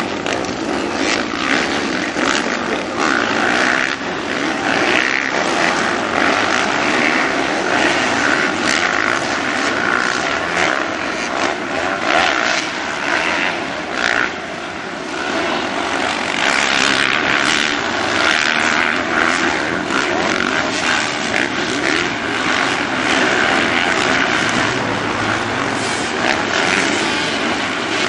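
Engines of several motocross bikes racing past, running hard and overlapping in one continuous drone, with a short dip about halfway.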